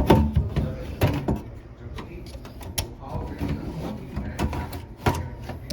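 Scattered clicks and knocks of a Mitel CX controller's cover being handled and pushed back into place on its chassis.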